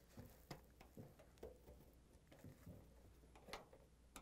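Faint clicks and light scrapes of a flat-blade screwdriver turning the metal locking rings on a refrigerator evaporator fan motor's plastic mounting bracket to lock them, with the sharpest click about three and a half seconds in.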